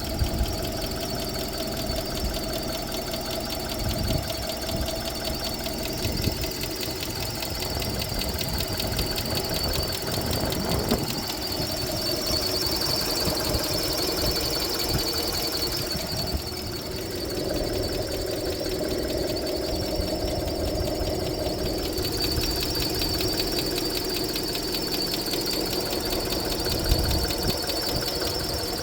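Mitsubishi Pajero iO's 1.8-litre 4G93 four-cylinder engine running steadily, with a constant high-pitched squeal over it and a fast, even ticking; the owner questions whether this noise is a fault.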